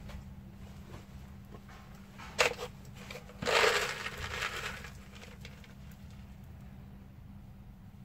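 A gloved hand scooping organic fertilizer pellets: a short click, then about a second of rustling and rattling pellets about three and a half seconds in, which trails off.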